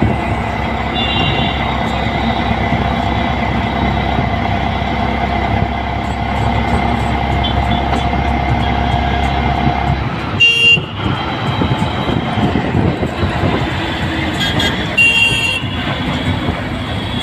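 Road traffic noise, with a steady engine rumble that drops away about ten seconds in. Vehicle horns give short toots about ten seconds in and again near the end.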